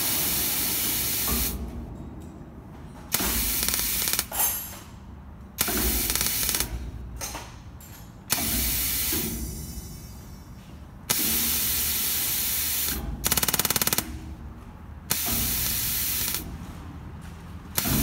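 Pneumatic positioner of a proportional DN250 butterfly-valve actuator venting compressed air in repeated hissing bursts of one to two seconds each as the actuator drives the valve lever to each new setpoint. About two-thirds of the way through there is a short, rapid buzzing rattle.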